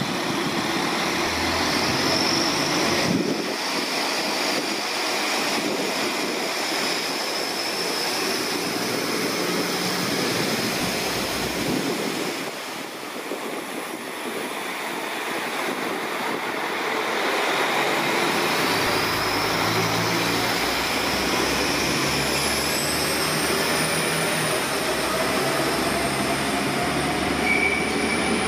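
Diesel multiple unit (Alstom Coradia LINT) pulling out and passing close by, its diesel engines running under power as it moves off and draws away. A high whine rises in pitch about two-thirds of the way through.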